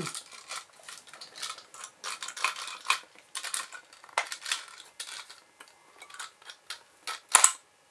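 Irregular metallic clicks and taps from the hand crank and gear train of an AKS-1 35 mm cine camera, a Soviet copy of the Bell & Howell Eyemo, as the crank is worked to engage the mechanism. One sharper click comes near the end, as the mechanism catches.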